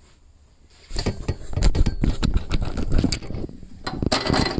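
Handling noise: a quick, irregular run of knocks, clinks and rubbing as the camera is picked up and carried. A louder scraping rustle comes near the end.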